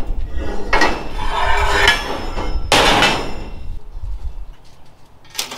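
Steel bar stock for a tailgate frame being handled: two rasping stretches of metal scraping and clanking with a ringing tone, then a single sharp click near the end.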